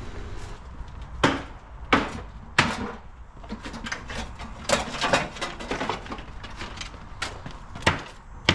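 Hammer striking wood in sharp knocks: three blows about two-thirds of a second apart, then scattered lighter taps, then more blows near the end.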